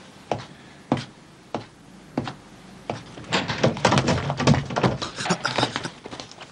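Footsteps, about one every 0.6 seconds, then a cluster of knocks and clatter as a panelled door is opened by its handle.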